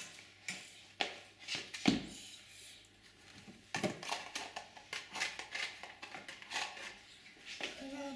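A metal box grater and a small steel saucepan clinking and knocking against each other and a wooden toy kitchen as they are handled. The knocks come one by one, loudest a little before two seconds in, then close together from about four to seven seconds in.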